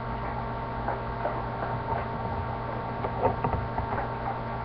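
Steady electrical hum, with a short run of small clicks and taps about three seconds in as a nail polish brush cap is set back onto its glass bottle.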